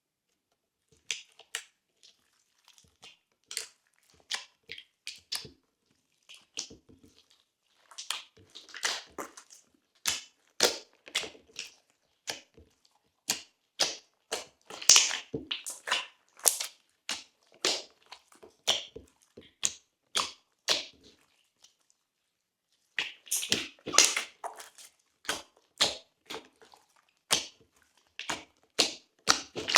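Glossy slime being squished, stretched and folded by hand, giving a rapid, irregular run of sticky clicks and small pops, with a brief pause a little after two-thirds of the way through.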